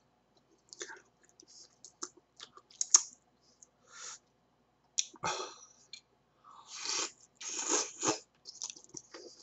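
Close-up eating sounds of a person eating ramen noodles and swimming crab: wet chewing and smacking clicks. Several longer noisy sucking sounds come about five seconds in and again around seven to eight seconds in, as crab meat is sucked from the shell.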